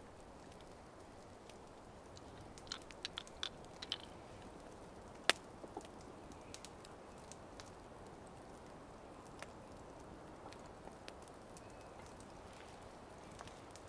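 Wood campfire crackling quietly, with scattered sharp pops: a small run of them about three seconds in and a single louder pop about five seconds in, over a steady faint hiss.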